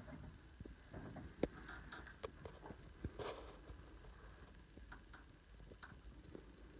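Faint, irregular light ticks and taps, a few a second, over a low steady rumble.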